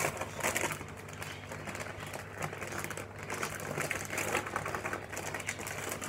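A plastic bag of flour crinkling as it is handled and shaken to sprinkle flour onto a countertop, with hands working dough. It makes a run of irregular crackles and soft taps.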